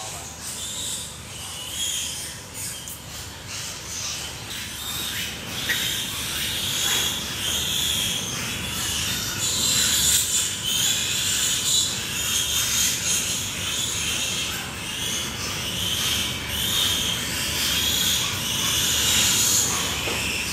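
Pigs in a farrowing barn: repeated high squeals, coming and going about once a second, over a steady low background noise.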